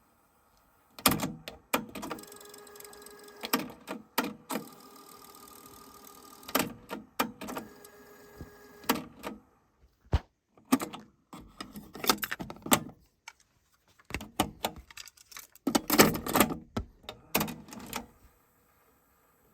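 JVC TD-W503 dual cassette deck's transport mechanism being operated: sharp clicks and clunks from its keys and cassette mechanism. Its motor runs with a steady whir for two stretches of a few seconds each, and a quick run of clunks comes near the end.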